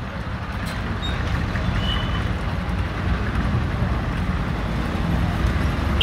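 Steady roadside street noise with a low rumble of passing traffic, with no clear single event.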